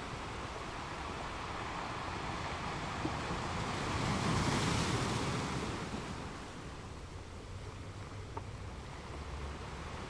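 Sea waves surging over rocks: a steady wash of surf, with one wave swelling louder about halfway through and then easing off.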